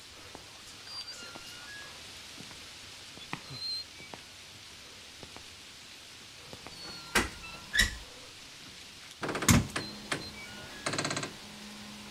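Thumps and knocks over a faint hiss: two sharp knocks about seven seconds in, a heavier thump a couple of seconds later, then a brief fast rattle.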